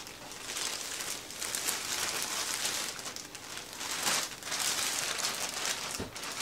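Clear plastic packaging bag crinkling and rustling as it is handled and a wig is pulled out of it, with louder crackles about four seconds in.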